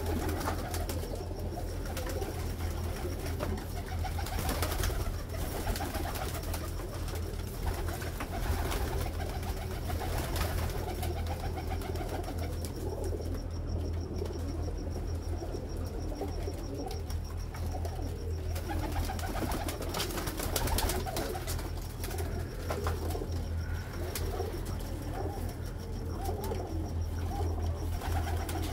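A flock of Teddy high flyer pigeons cooing together continuously, over a steady low hum. A wing flap is heard near the end.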